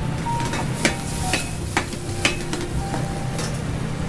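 Spinach and cheese sauce sizzling gently in a sauté pan on a gas burner, with a few sharp clicks against the pan, over a steady low hum.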